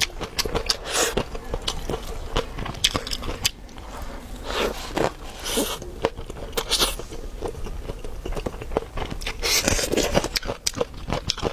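Close-miked biting and chewing of thick-fleshed pickled chili peppers: many wet clicks and crunches in no set rhythm.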